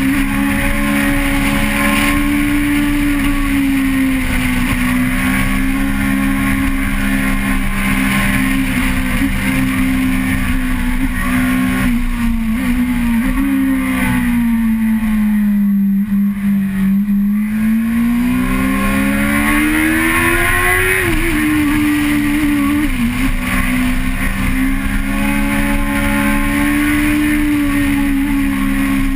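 Vehicle engine heard from an onboard camera, running at steady revs. Its pitch drops to a low point about halfway through as it slows, then rises sharply under acceleration before settling back to a steady note.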